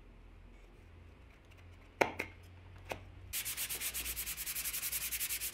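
A sharp knock about two seconds in, with a lighter one just after. Then a softwood block being hand-sanded fast back and forth with a round sanding block, a rasping scrape pulsing about nine strokes a second.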